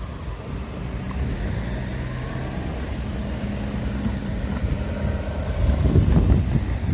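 Road vehicle engine running steadily, growing louder near the end as traffic moves past.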